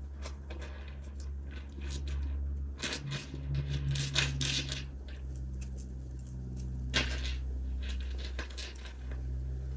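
Cotton yarn rustling and scratching as strands are pulled through a wooden bead and tassel with a small crochet hook, in irregular short strokes with a louder scratch about seven seconds in. A steady low hum runs underneath.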